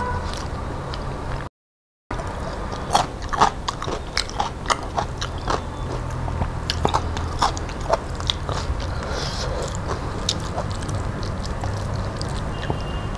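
Close-up eating sounds: wet chewing and lip smacks with many short sharp clicks as rice is eaten by hand, over a steady low hum. The audio drops out to silence for about half a second near the start.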